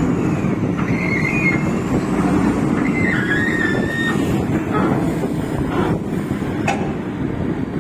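Heavy vehicle engine running steadily under a crane lift, with a few brief high squeals and a sharp click near the end.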